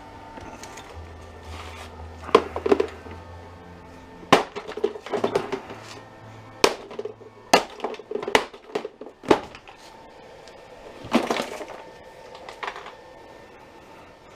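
Sharp knocks and cracks, about ten irregular strikes, as the hard plastic case of a Husky jump starter pack is forced open. Background music plays underneath.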